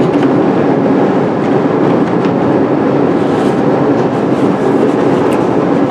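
Loud, steady, even rumbling noise with no rhythm and no clear pitch.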